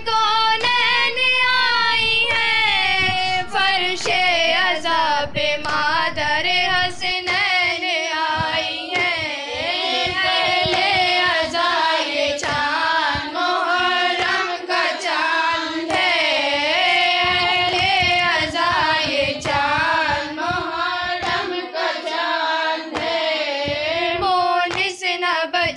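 A woman singing an Urdu noha, a Muharram lament, in a long wavering melodic line, with sharp beats scattered behind the voice.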